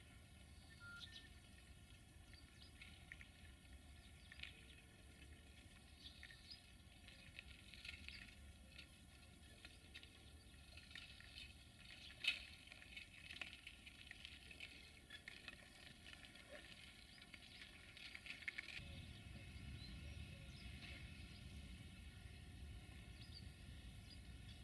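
Faint, scattered clicks and light creaks of a slow-moving freight train of hopper wagons, with one sharper click about halfway through and a low rumble coming up about three-quarters of the way in.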